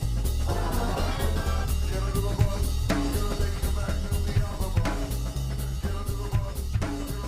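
Instrumental stretch of a rock song without vocals: a drum-kit beat with bass drum and snare strikes over a stepping bass line.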